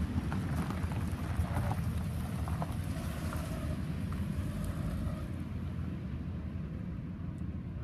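Wind rumbling on the microphone over the low, fading rumble of a CSX freight train moving away down the line, with a car passing close by.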